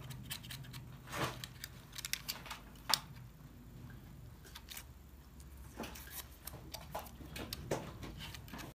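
Faint, scattered clicks and light taps, a few a second at most, with the sharpest about three seconds in, over a low hum that fades in the first second.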